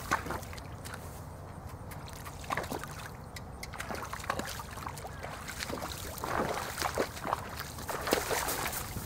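A horse's hooves splashing and sloshing in shallow pond water, with the heaviest splashes in the last few seconds as it walks out of the water.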